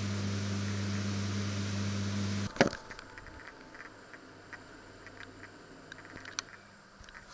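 A steady machine hum with hiss, stopping suddenly with a knock about two and a half seconds in. After it, pear slices frying gently in a pan, with faint scattered crackles and pops.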